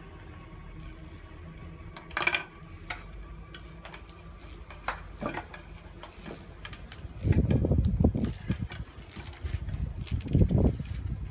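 Thick copper cable being stripped by hand, its heat-hardened plastic insulation cut and peeled away, with scattered clicks and clinks. There is a louder knock about two seconds in, and bursts of heavier rustling handling noise about seven and ten seconds in.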